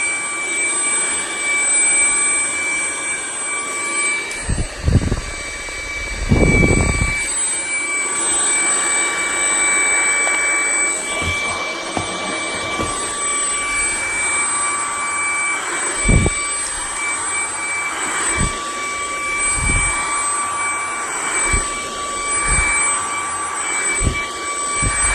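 Tineco cordless stick vacuum running steadily with a high motor whine and rushing airflow, with a few short low thumps scattered through.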